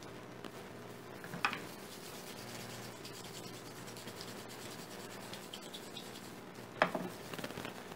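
Wooden pepper mill grinding black pepper over a bowl of raw chicken, with a small click about a second and a half in and a sharp knock near the end.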